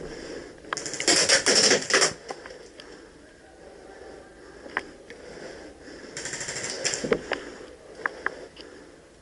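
Airsoft electric rifle firing a quick string of shots for about a second, with a second, quieter burst of rapid clicks a few seconds later and a few single clicks between.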